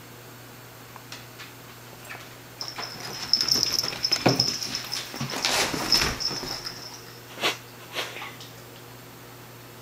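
A dog whining in a high, wavering tone for about four seconds, mixed with scuffling and knocks; two sharp knocks follow near the end.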